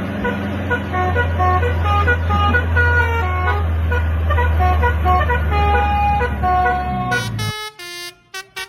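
Truck engine running with a musical horn playing a tune of short notes that step up and down in pitch. About seven and a half seconds in, the engine sound stops abruptly and loud, short horn notes follow in a choppy rhythm.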